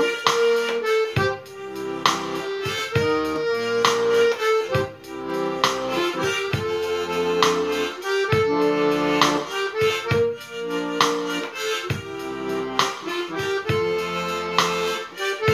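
Harmonica in a neck holder playing the melody over a piano accordion's rhythmic bass-and-chord accompaniment, in a steady beat.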